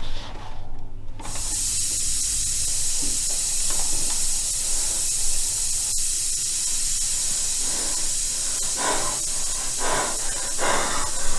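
Steady hiss of gas escaping from a brass valve, starting suddenly about a second in. Near the end a person's breaths are heard over it, several in quick succession.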